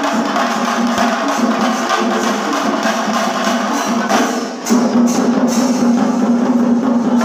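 Chenda melam: a large ensemble of chenda drums playing fast, dense, continuous drumming. The drumming drops briefly about four and a half seconds in, then comes back in full.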